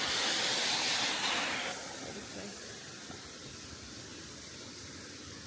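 Waterfall rushing: a steady hiss of falling water that drops to a quieter, duller level a little under two seconds in.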